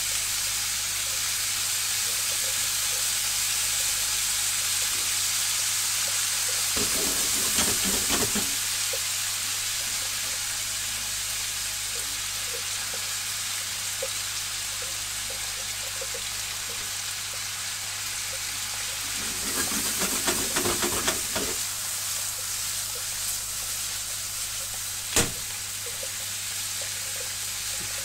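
Chicken skin and green peppers sizzling steadily in a frying pan, with two spells of stirring and turning with chopsticks and one sharp click near the end.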